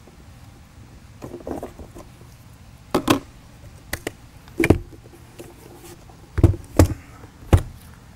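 Hands working the battery latch and cover of a Panasonic CF-31 Toughbook rugged laptop to remove its battery. A short sliding scrape is followed by sharp plastic clicks. Near the end come three or four heavier knocks as the laptop case is set down on the table.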